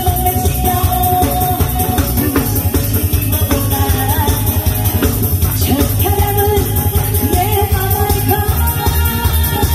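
A woman singing live into a handheld microphone over loud amplified backing music with a steady bass beat.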